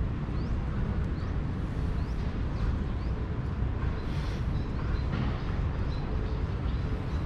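Outdoor city ambience: a steady low rumble of distant traffic. Over it a bird repeats a short rising chirp, about once every second, through the first half.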